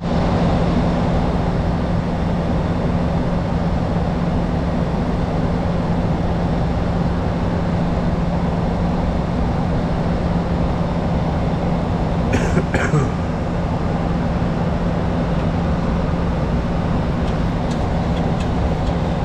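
Steady flight-deck noise of a Boeing 737-800 in flight: rushing air and engine noise under a steady low hum, broken by two brief clicks about two-thirds of the way through.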